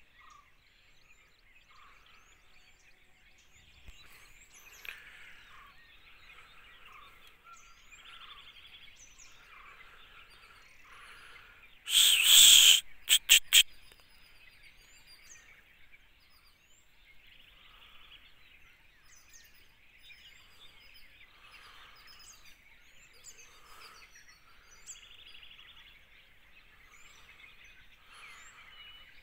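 Forest ambience: many birds chirping and calling over a steady hiss. About twelve seconds in there is a loud, noisy burst lasting under a second, followed by three sharp clicks.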